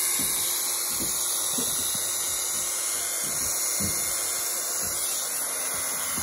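Corded electric hair clippers running steadily while cutting short hair on the back and side of a head.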